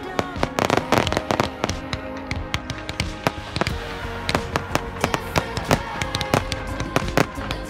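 Fireworks going off in quick succession: rapid crackling and popping with many sharp bangs, busiest in the first second or two. Music with steady held notes plays underneath.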